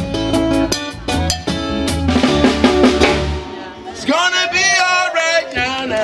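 Live reggae band playing, with drum kit, bass and acoustic guitar: hard drum hits for the first few seconds and a cymbal ringing out. About four seconds in the band thins and a man's voice sings a long, wavering line.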